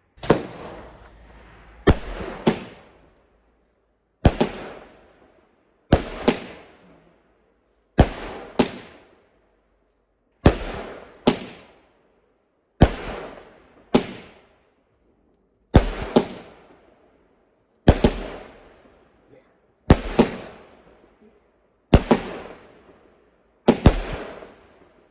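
A multi-shot firework cake firing a steady barrage: a sharp bang, often a quick pair of bangs, about every two seconds, each fading away before the next.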